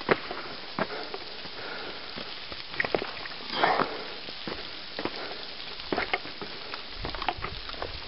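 Footsteps and scrapes on loose rock and boulders, with irregular clicks and crunches over a steady hiss, and a brief louder rustle about three and a half seconds in.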